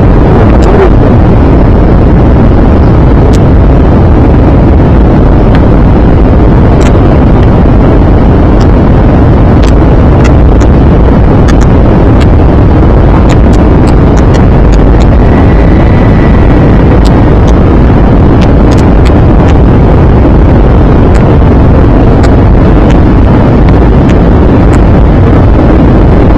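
Airbus A320 cabin noise on approach: a steady, loud rush of engine and airflow sound, overdriven on the microphone, with scattered crackles. A faint brief whistle-like tone comes about halfway through.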